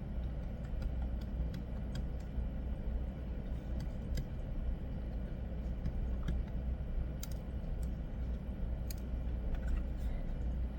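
Faint scattered clicks and ticks of sprinkles and plastic slime-kit pieces being placed and handled, a few a second at most, over a steady low hum.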